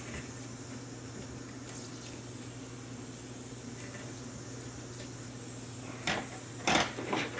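Soldering iron tip being cleaned in a brass-wool tip cleaner over a steady hiss, then a few sharp knocks near the end as the iron is set back into its stand.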